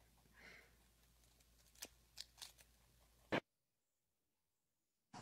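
Faint crunching of a rabbit chewing leafy greens: a few small soft clicks, then a sharper click, after which the sound cuts off to dead silence for the last two seconds or so.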